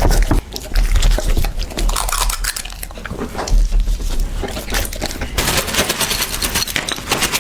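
Clattering and clicking of a dog's food bowl, made up of many quick irregular clicks and knocks. A denser rustling hiss comes in about five and a half seconds in.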